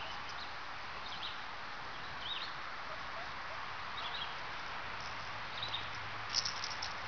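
Short, high squeaks from a small animal come a few at a time, with the loudest cluster near the end, over a steady hiss.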